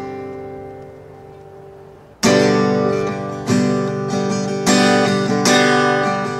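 Instrumental gap in a sung ballad: a held guitar chord fades out, then strummed acoustic guitar chords come in loudly about two seconds in and are struck again about once a second.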